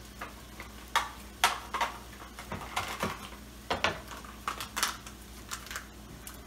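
Kitchen utensils and dishes clinking and knocking: about ten sharp, irregular clicks and clinks over a faint steady low hum.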